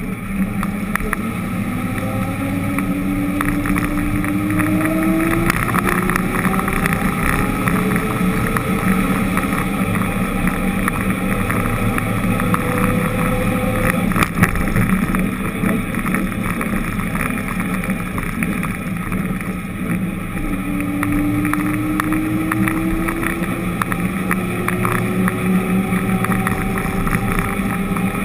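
Engine of the vehicle carrying the camera, accelerating through the gears: its pitch climbs in several long rises, each dropping back before the next, over a steady rush of road and wind noise.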